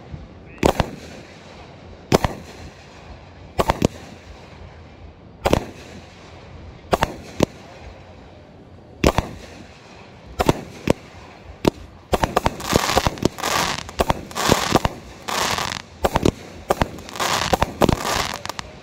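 Aerial fireworks firing: single sharp bangs about every second and a half, then from about twelve seconds in a faster volley of bangs with crackling between them.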